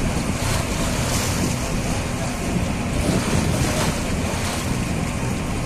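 Wind buffeting the microphone over the rush of choppy river water from a moving boat, with a low steady drone underneath.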